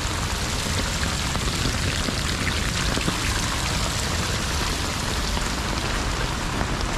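Rainwater from heavy rain pouring and splashing down a rocky roadside bank, with rain falling: a steady, even rush of water.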